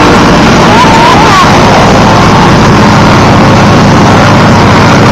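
North American T-6 Texan's nine-cylinder Pratt & Whitney R-1340 Wasp radial engine running loud and steady on the ground, propeller turning while the smoke system pours out oil smoke.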